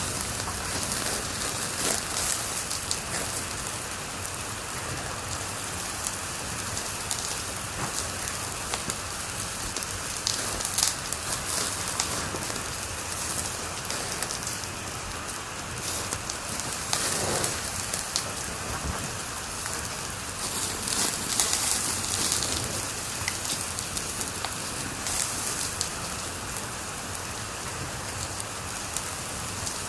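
Wood fire crackling in a fireplace: a steady hiss dotted with many small pops and snaps, with a couple of busier spells of crackling.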